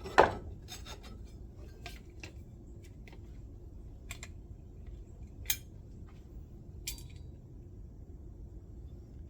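A Milwaukee hand screwdriver turning a screw, with low rubbing and scraping of the tip in the screw head and a few sharp metal clicks, the loudest just after the start.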